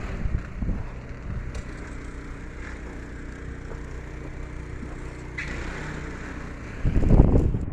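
Wind buffeting the microphone, easing off about half a second in and gusting back in loudly near the end; in the lull between, the steady low hum of a vehicle engine running.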